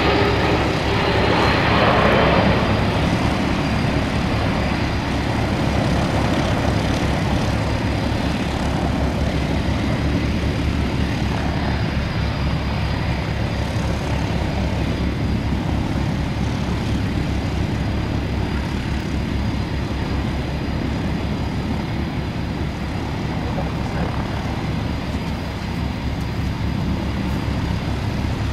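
Jet noise from a Boeing 787 Dreamliner's twin engines as it banks past and flies away. It is loudest in the first two seconds or so, then settles into a steady roar that slowly eases.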